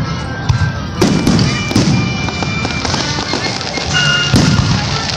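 Aerial firework shells bursting overhead: a loud boom about a second in and another near the end, each trailing off into a rumbling echo, with crackling between.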